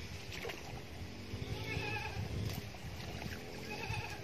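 Water spinach stems being pulled up from shallow pond water, with rustling and light splashing under a steady low rumble of wind on the microphone; a faint voice is heard in the background.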